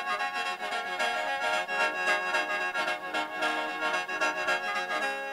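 Khaen, the Isan bamboo free-reed mouth organ, playing a fast pulsing rhythmic figure over its steady drone chord, settling into a held chord near the end.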